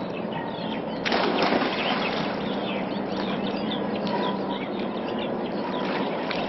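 Water splashing from a swimmer doing butterfly stroke, with a louder splash about a second in. Small birds chirp throughout.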